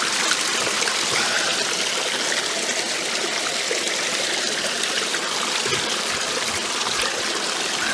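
Mountain stream running over rocks, a steady rushing and trickling of water.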